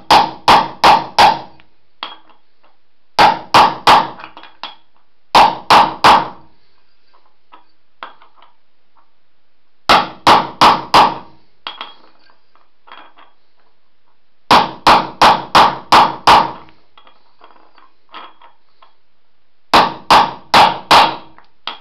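Hammer blows on a metal socket set on a ball bearing's outer race, driving the bearing into a go-kart rim. The blows come in six quick volleys of three to six sharp metallic strikes each, separated by pauses of a few seconds with faint clinks between them.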